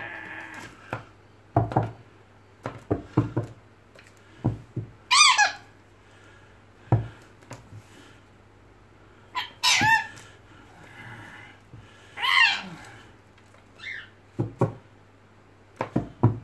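Red lory calling in about four short bursts of shrill, rapidly bending screeches, with sharp knocks and taps on a wooden desktop scattered between them.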